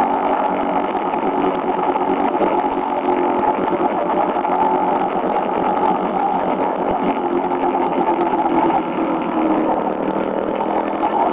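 Motorcycle engine running steadily at cruising speed, heard from on board a moving motorcycle, with a constant rush of noise under the hum.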